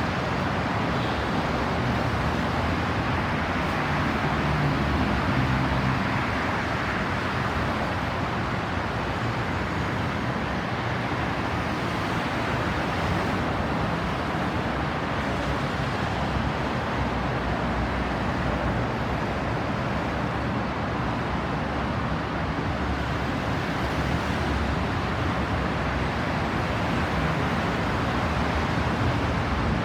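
Steady road traffic noise: running engines and tyre noise, with an engine's low hum a little stronger around four to six seconds in. No siren wail is heard.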